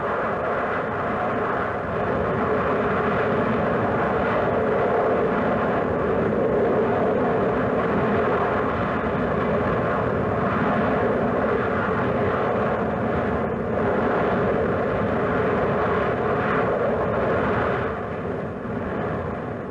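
Volcanic vent degassing with lava spatter: a steady, loud rush of jetting gas that eases a little near the end.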